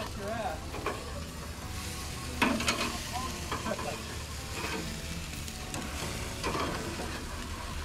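Sausages, onions and steak sizzling on a grill, with metal tongs clicking and scraping against the grate several times as the food is turned.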